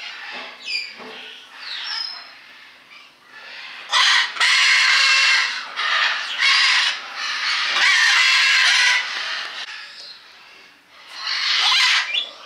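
Loud, harsh bird calls, several in a row from about four seconds in and another near the end, with softer chirps before them.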